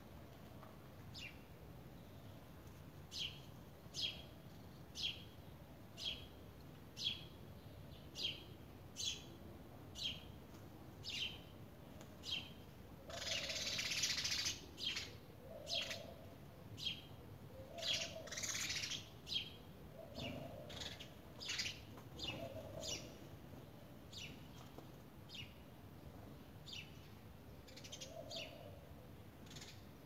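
Sparrows chirping: short, high single chirps about once a second, with two louder, denser bursts of chirping near the middle.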